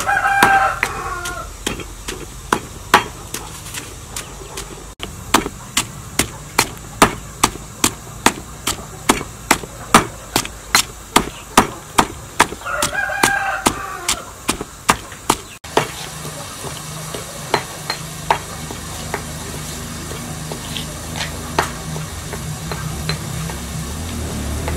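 Pestle pounding chillies and garlic in a mortar, regular knocks about two a second, while a rooster crows twice, once at the start and again about 13 seconds in. About 15 seconds in the pounding stops, leaving a low steady sound with faint crackles from the wood fire under a pot.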